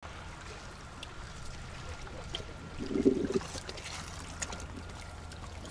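Steady wind rumble on the microphone with faint water sounds and scattered small clicks, and a brief, louder muffled sound about three seconds in.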